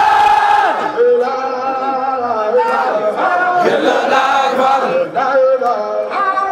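A crowd of young men singing and chanting together, many voices holding pitched notes at once.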